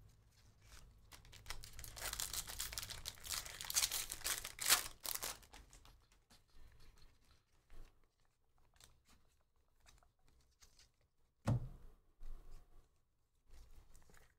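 Foil wrapper of a Bowman Draft jumbo pack of baseball cards torn open and crinkled by hand for about four seconds. Then comes a quieter rustle and faint clicks of the cards being handled, with a single thump near the end.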